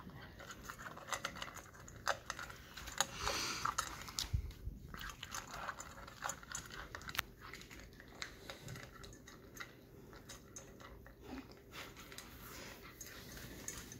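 A puppy eating out of a metal bowl: quick, irregular crunching and clicking, busiest in the first few seconds.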